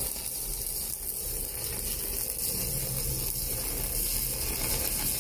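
Stick (arc) welding with a Sasuke inverter welder and a 3.2 mm electrode: the arc makes a steady sizzling hiss as a bead is run. The rod is old stock that has been stored for years.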